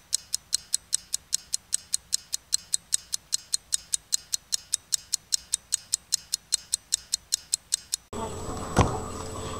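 Rapid, even ticking, about five ticks a second, like a clock or timer sound effect; it stops about eight seconds in, giving way to room noise and a single sharp knock.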